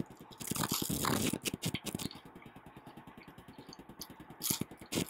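Eating utensil scraping and clinking against a container of butter chicken and rice, busiest in the first two seconds, then quieter small clicks, with a short rustle about four and a half seconds in.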